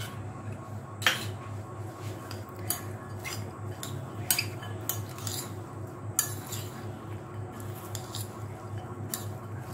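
Steel spoon stirring salad in a glass bowl: irregular clinks and scrapes of metal against glass, the sharpest about a second in. A steady low hum runs underneath.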